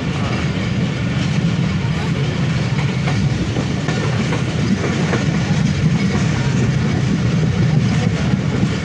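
Passenger coach running along the track, heard at its open window: a steady rumble of wheels on rails, with a few faint clicks.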